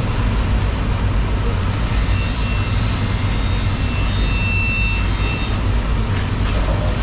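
Steady low machine rumble, with a hiss joining in about two seconds in and stopping about a second and a half before the end.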